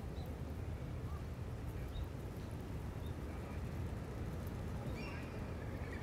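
Outdoor seaside ambience: a steady low rumble with a few short, high bird chirps scattered through it, and a louder bird call about five seconds in.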